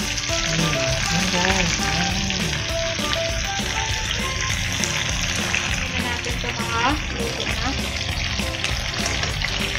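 Chicken thighs frying in olive oil in a nonstick pan: a steady sizzle.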